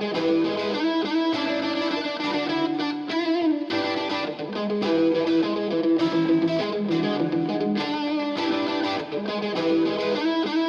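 Background music: electric guitar with distortion and effects, playing a steady run of notes.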